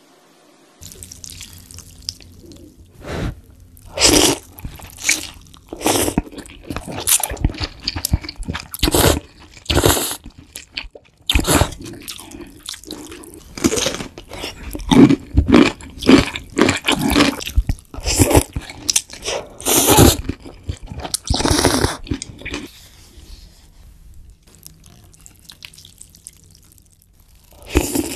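Close-miked eating sounds: slurps of thin wheat noodles in broth and chewing, in an irregular run of short, loud bursts. They die down for several seconds near the end, then one more loud slurp.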